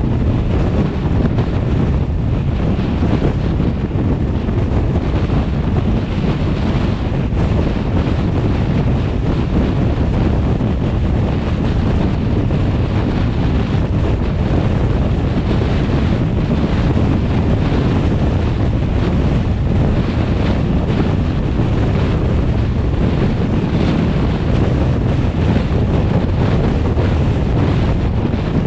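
Steady rush of wind and road noise from a moving car, with wind buffeting the microphone.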